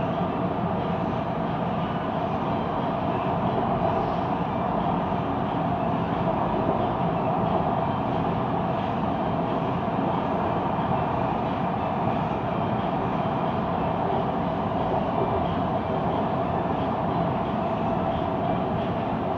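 Siemens Inspiro metro train running at speed between stations, heard from on board: a steady, even rolling noise from the wheels and running gear with a constant hum through it, the weird rolling noise this train makes.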